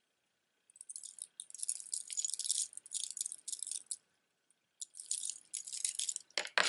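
Metal jewelry rattling as it is handled: the hinged segments of a two-tone Monet fringe necklace clinking against one another. The jingling comes in two stretches, with a short pause about four seconds in.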